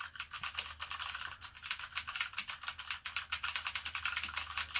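Fast typing on the Apoint TUF mechanical keyboard's clicky blue switches: a dense, unbroken run of sharp clacks, many keystrokes a second, each with a crisp click.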